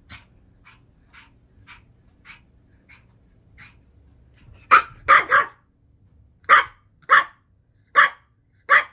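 Small Chihuahua-type puppy barking: a series of faint short sounds, then about seven sharp, high barks starting about five seconds in.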